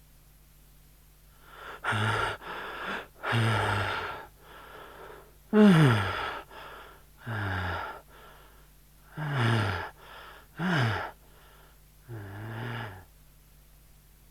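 A man's voice groaning in a string of about seven drawn-out moans, each sliding down in pitch, with quieter breaths in between, as a novelty sound effect.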